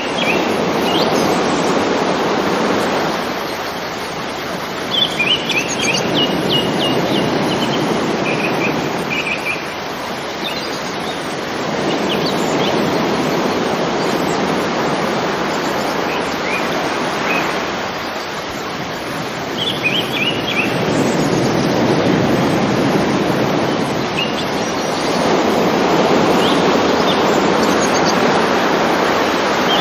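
River water flowing and rushing, its level swelling and easing every few seconds. Birds chirp in short quick clusters several times over it.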